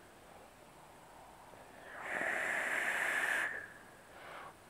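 Airflow hissing through a Kennedy-clone rebuildable dripping atomizer with a 0.8-ohm kanthal coil as a vaper takes a long draw of about a second and a half, starting about two seconds in. A short, fainter breath out follows near the end.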